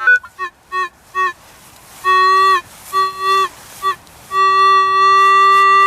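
Minelab CTX 3030 metal detector sounding over a buried target: a run of short beeps, two longer tones around two and three seconds in, then a long steady tone from about four seconds in. The detectorist reads the signal as a button.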